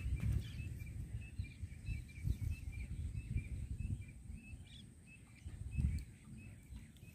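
A bird calling a steady run of short, high chirps, about three a second, that stops after about four and a half seconds, over a low, uneven rumble.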